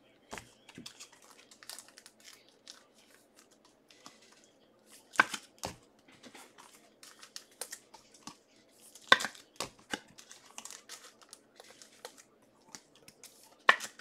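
Crinkling and tearing of trading-card pack wrappers and packaging as they are handled. Soft rustles and clicks run throughout, with a few louder snaps about five and nine seconds in and near the end.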